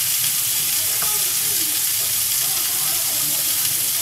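Spiced salmon fillet frying in a little olive oil on a griddle pan: a steady sizzle.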